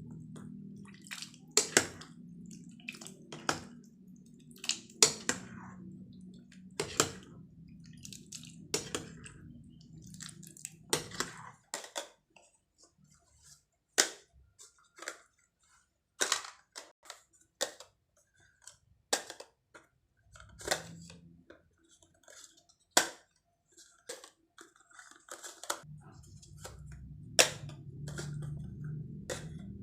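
Kitchen work with utensils: a series of sharp, irregular knocks and clicks, about one every second or two, over a low steady hum that stops about eleven seconds in and returns near the end.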